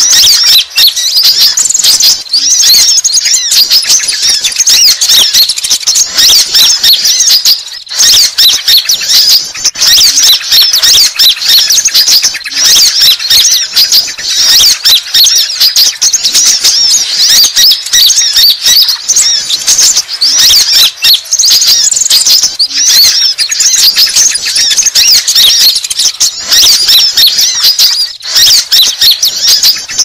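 Konin sunbirds singing: a loud, unbroken stream of high, rapid chirps and twitters. This is a sunbird lure-call recording, played to draw sunbirds in and provoke rival males.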